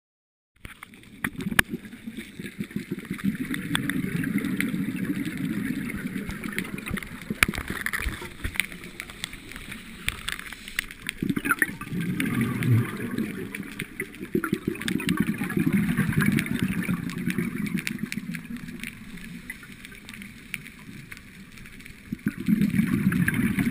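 Underwater recording of a scuba diver's exhaled bubbles gurgling and rushing in waves every few seconds, with scattered sharp clicks.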